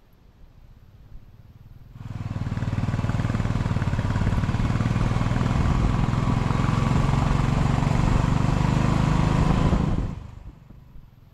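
A vehicle engine running steadily under load, with road and wind noise. It starts abruptly about two seconds in, builds briefly, and cuts off suddenly near the end.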